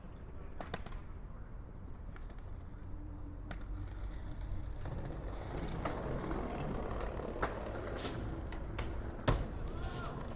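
Skateboard rolling: a low rumble from the wheels that grows louder about five seconds in, with scattered sharp clicks and one stronger knock about nine seconds in.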